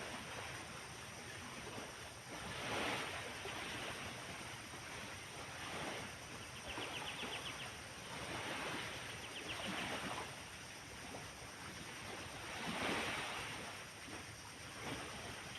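Wind gusting through pine trees, a rushing noise that swells and fades every few seconds. A short, fast rattling trill is heard twice around the middle.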